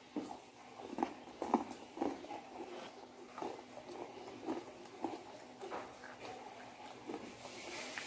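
Close-up mouth sounds of fried chicken being chewed: a run of short, irregular smacks and crunches, about one to two a second.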